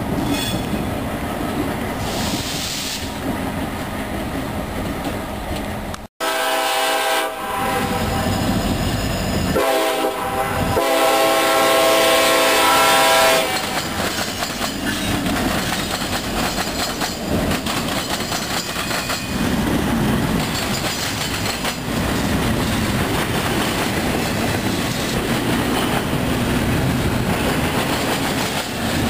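A CSX diesel locomotive rumbling past. After a cut, a diesel locomotive horn sounds in two long blasts, the second louder, then a line of Norfolk Southern diesels and a double-stack container train roll by with a steady rumble.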